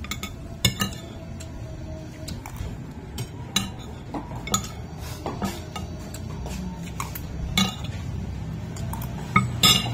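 Dishes and cutlery clinking now and then on a plate as someone eats, in short scattered taps with a louder pair near the end, over a low steady hum.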